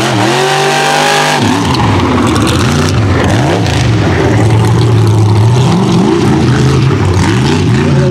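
Mud racing super truck engine running hard, its pitch climbing and dropping again and again as the throttle is worked, over a steady noisy rush.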